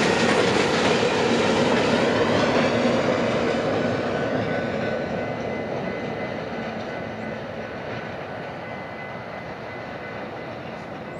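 A train running past and moving away, its rumbling rail noise fading steadily.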